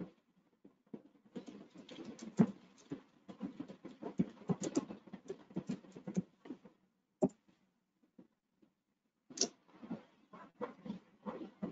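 Irregular quick taps and clicks in uneven flurries, with a pause of about two seconds past the middle.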